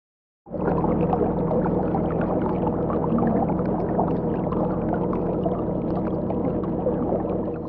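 R/C model destroyer running on the water, starting about half a second in: a steady low motor hum with water splashing and lapping along the hull.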